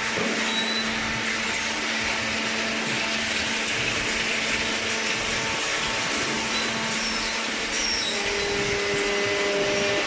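Steady whirring machinery noise from waste paper baling equipment running, an even rushing whir with a faint hum beneath it.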